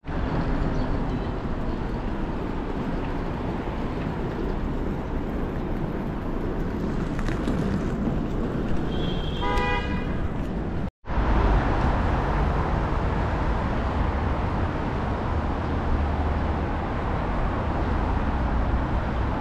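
Steady traffic noise of a busy city road, with a quick run of short horn toots about nine seconds in. The sound cuts out for an instant near eleven seconds.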